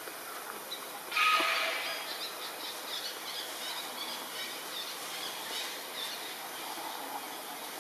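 A single loud animal call about a second in that fades over about a second, followed by scattered short high bird chirps over steady forest background noise.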